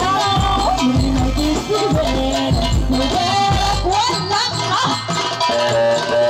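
Loud Egyptian sha'bi party music: an ornamented melody line over a pounding bass beat, with the bass beat dropping out about four seconds in.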